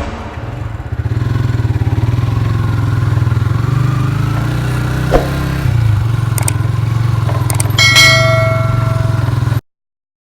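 A small engine running steadily with an even low pulsing, with a brief ringing tone about eight seconds in; the sound cuts off abruptly near the end.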